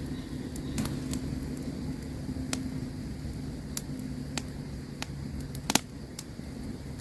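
Campfire crackling: scattered sharp pops and snaps over a steady low rumble of the burning fire, with one loud pop about six seconds in.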